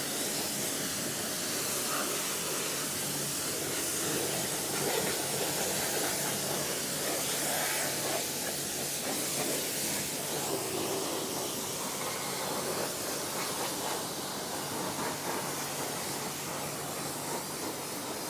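Stihl REA 60 Plus battery pressure washer spraying a steady, hissing jet of water onto a motorbike, with a faint steady hum from the pump underneath.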